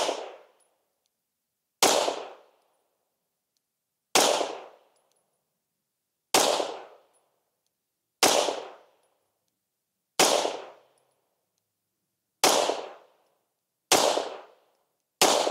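Sig Sauer P320 X5 9mm pistol firing subsonic Federal Syntech Action Pistol 150-grain rounds: eight single shots about two seconds apart, each dying away quickly.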